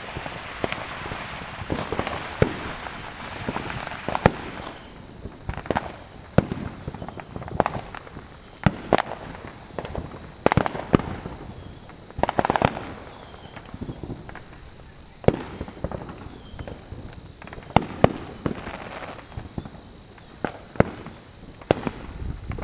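Consumer fireworks going off: a string of sharp bangs at irregular intervals, with a dense crackling rush during the first four seconds or so.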